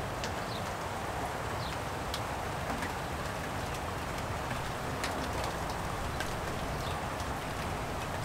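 Light rain falling steadily, with scattered sharp ticks of drops landing close by and a few brief high chirps.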